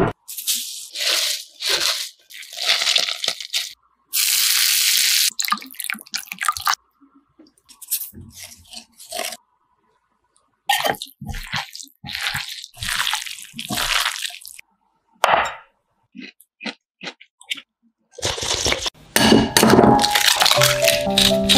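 Washed cabbage leaves being squeezed and tossed by hand in a glass bowl: repeated wet crunching and squishing in short bursts with pauses, and water dripping. Background music comes in near the end.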